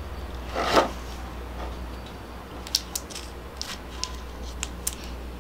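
Handling noise from fingers turning a small metal enamel pin: a short rustle a little under a second in, then several light clicks and taps. A steady low hum runs underneath.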